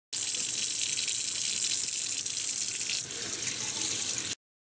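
Tap water running into a stainless steel sink as a whole squid is rinsed under the stream by hand: a steady hiss that cuts off suddenly near the end.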